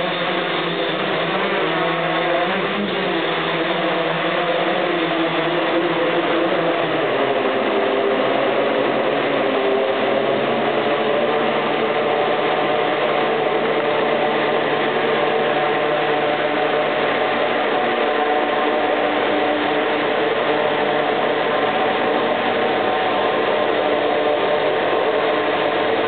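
Six brushless motors and propellers of a hexacopter, its motors tilted at 40 degrees, running with a steady whir of several close tones. The pitch wavers as the throttle shifts in the first several seconds, then holds steadier.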